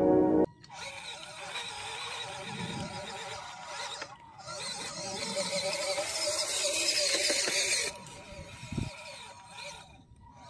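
Electric drive motor and gearbox of a 1:12 MN90 RC Land Rover Defender whining as the truck crawls over mud. The sound grows louder midway and drops off sharply after about eight seconds.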